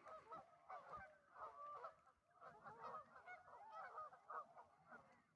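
Faint chorus of many waterfowl on open water calling at once, short overlapping calls thinning out near the end.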